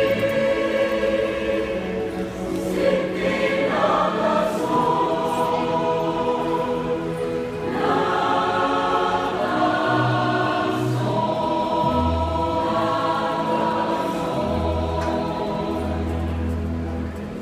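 Mixed youth choir singing a Christian hymn in sustained multi-part harmony, with deep held low notes in the second half.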